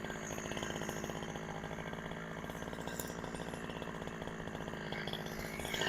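Two-stroke chainsaw idling steadily.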